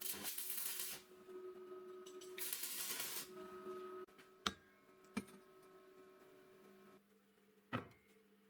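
Homemade drill-bit sharpener on an old washing-machine motor running with a steady hum. A drill bit is ground against the wheel in two short hissing bursts, followed by a few sharp clicks.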